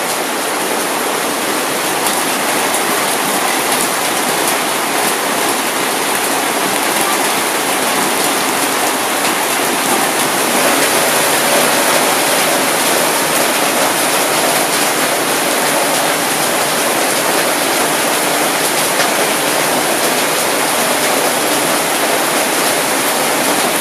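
Heavy rain pouring down steadily: a loud, even hiss with scattered drop hits through it.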